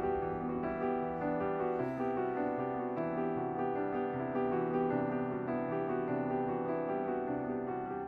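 Background piano music, a slow run of sustained chords.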